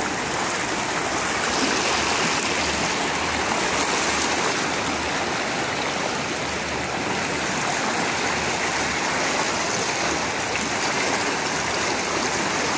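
A river in flash flood, its muddy brown floodwater rushing past in a steady, even noise.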